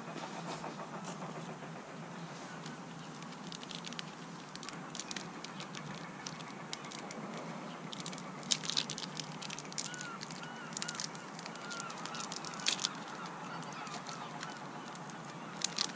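Birds calling in a run of short repeated calls against steady outdoor background noise, with short crinkles of a small paper seed packet being handled a little past halfway and again near the end.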